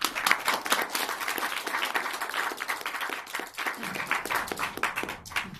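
Audience applauding: steady, dense hand-clapping.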